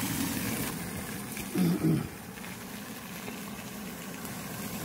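Slices of tofu frying in oil in a pan on a portable gas burner, with a steady sizzle. A short voiced sound from a man comes about a second and a half in.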